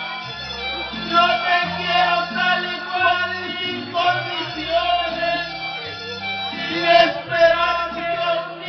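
A man singing into a microphone over backing music, with a bass line stepping between notes about every half second.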